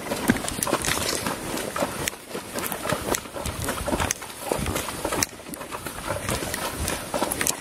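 Hooves of a ridden horse thudding irregularly on grassy ground, heard from the saddle.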